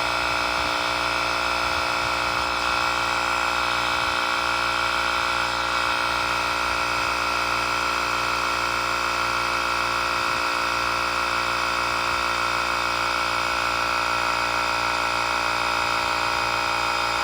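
Portable electric tire inflator's small compressor running steadily with an even buzz, pumping air into a tire.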